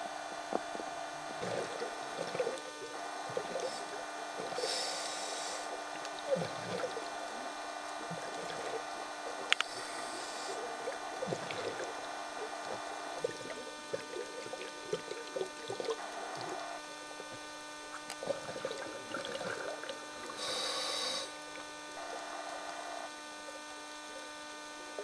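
Scuba diver's regulator breathing, heard underwater over a steady hum: three hissing inhalations about a second long, with bubbly gurgling exhalations between them.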